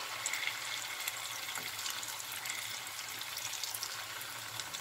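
Pumpkin fritters frying in hot oil in a pan: a steady sizzling hiss with many small crackling pops.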